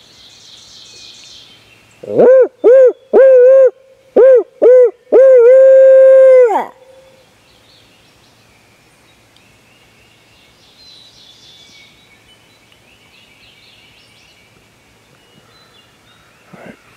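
A turkey hunter's owl locator call: a loud run of owl hoots in a barred-owl cadence, six short hoots then a long drawn-out final one, given to make roosted gobblers shock-gobble and give away where they are.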